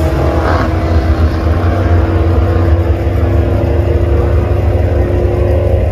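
Drag race car engines running loud with a deep, steady rumble.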